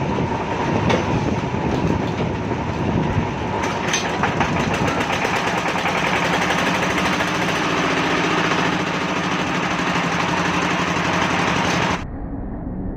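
Hand-crank-started diesel engine running with a fast, even chugging. About twelve seconds in, the sound suddenly drops and turns duller.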